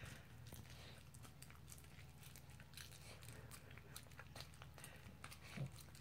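Dog eating sticky rice off a plate: faint, irregular mouth clicks and smacks of chewing and licking, with one slightly louder soft low sound near the end.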